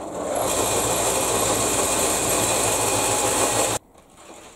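Homemade 4x36 belt sander switched on, its electric motor running the belt at speed with a steady hum and a high whine, then stopping suddenly after nearly four seconds. The belt has no tension spring and no tracking set yet.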